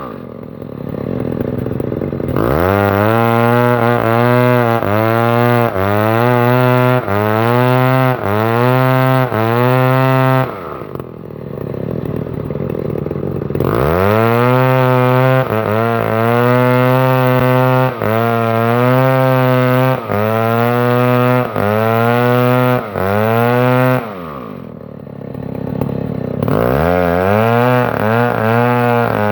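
Stihl 070 two-stroke chainsaw revved hard in repeated bursts, about one a second, its pitch rising in each burst. Three times it drops back to a low idle for a couple of seconds before revving up again.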